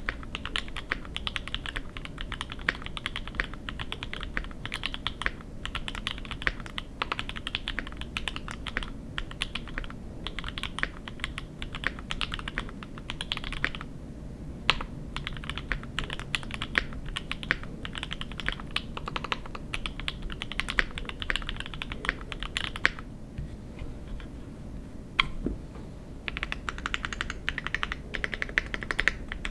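Fast typing on a gasket-mounted KBDfans D65 mechanical keyboard with lubed Equalz C3 Tangerine v2 linear switches, an FR4 plate, plate and case foam, and GMK keycaps: dense runs of keystrokes. There is a short pause about halfway through and a longer pause about three-quarters of the way in, broken by a couple of single key presses.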